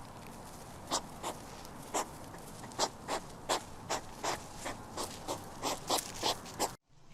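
Hedgehog making short breathy sniffing puffs, sparse at first, then quicker at about two or three a second. The sound drops out briefly near the end.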